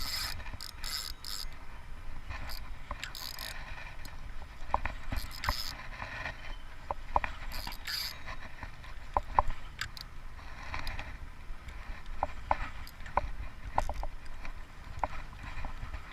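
Fishing reel being cranked to bring in a hooked striped catfish, its mechanism clicking irregularly, with occasional short bursts of hiss.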